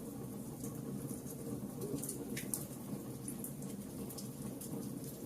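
Wood fire in a fireplace crackling: scattered sharp pops and snaps over a steady low rush of the flames.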